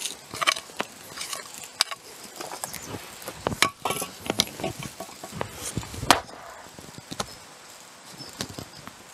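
Small hoe chopping and scraping through loose soil and gravel, with stones knocking, as soil is worked into a rubble foundation pit to fill the gaps. The knocks come irregularly, with a couple of louder ones in the middle, and ease off near the end.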